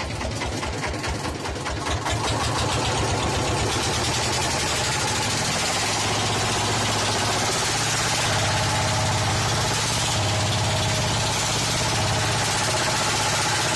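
Wooden river boat's inboard engine thumping at idle, then opened up about two seconds in to a steady run as the boat gets under way, with water rushing along the hull.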